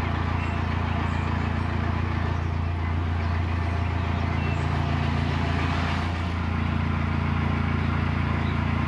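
Narrowboat's diesel engine running steadily, a loud, even, low hum.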